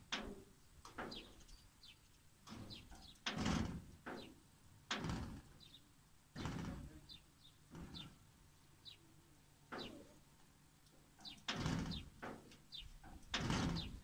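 Small birds chirping in short high chirps, over a run of irregular dull whooshes on the microphone every second or two.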